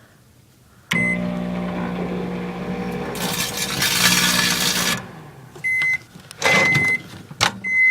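Microwave oven beeps once as it starts, then runs with its steady hum for about four seconds. For the last two seconds an empty plastic chip bag inside crackles loudly as the heat shrivels it. The oven then stops and beeps three times at the end of its cycle.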